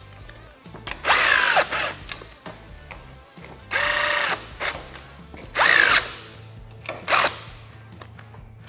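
Cordless drill-driver running in four short bursts, its motor whine rising and falling with each pull of the trigger as it drives the screws of a steel clamp mount onto the roll cage.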